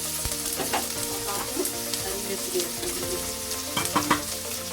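Chopped tomatoes and onions sizzling in hot oil in a wok while being stirred, with a couple of sharper scrapes about four seconds in.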